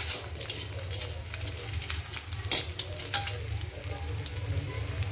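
Pieces of edible gum (dink) sizzling as they fry and puff up in a metal kadhai, stirred with a steel spatula that scrapes and clicks against the pan, with two sharper clicks about halfway through. A low steady hum runs underneath.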